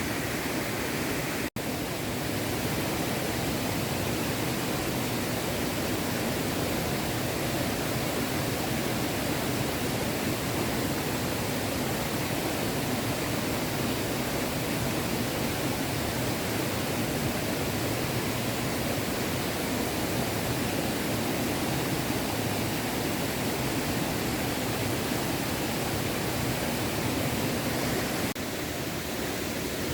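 Small stream flowing over stones, a steady rushing of water, broken by a split-second dropout about a second and a half in.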